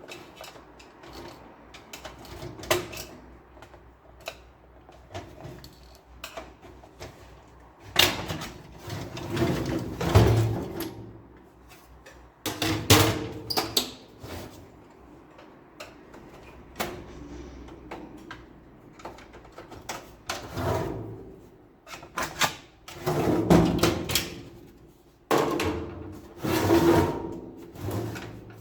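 Plastic parts of an HP LaserJet P1102 printer being handled during a gear repair: irregular clicks, knocks and scraping, with several louder bouts of clatter.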